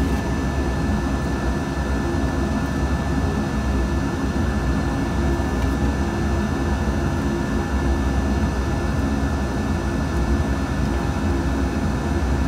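Steady machine hum with a faint high whine held throughout, without breaks or distinct events.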